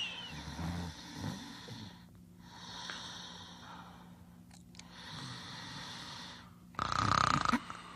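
Cartoon characters snoring in their sleep: rasping, drawn-out snore breaths, with a louder burst near the end.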